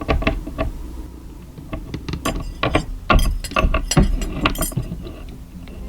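A run of irregular clicks and clacks of small hard objects being handled, the clicks uneven in spacing and strength.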